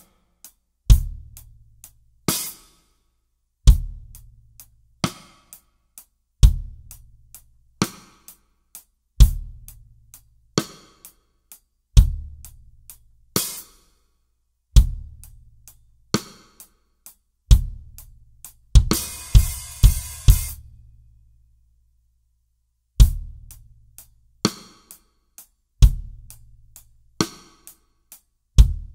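Isolated drum-kit track: a CMC kit with Meinl cymbals and a solid walnut stave snare plays a slow, sparse groove, with a deep bass-drum boom about every second and a half and lighter snare and cymbal hits between. About two-thirds of the way through comes a quick run of hits under a cymbal wash, then the kit stops for about two seconds before the groove picks up again.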